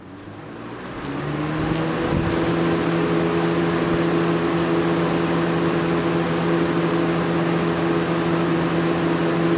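1991 Galaxy 4713 20-inch box fan switched on at high speed. The motor spins up over about a second and a half, then runs steadily with a motor hum and the rush of moving air.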